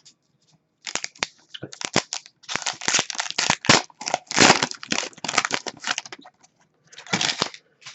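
A hockey-card foil pack wrapper and trading cards being handled, a quick run of crinkling, rustling bursts that starts about a second in and dies away near the end.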